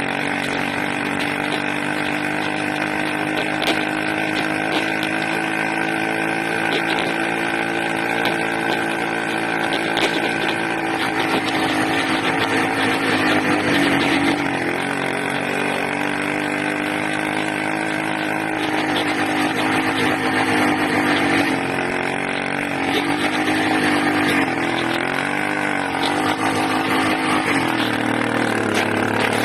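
80cc engine running with its speed held fairly steady, then hunting up and down near the end. The owner suspects an air leak at the intake manifold upsetting the carburetor.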